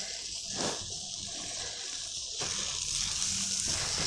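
Butter sizzling in a hot frying pan: a steady high hiss, a little louder from about halfway through.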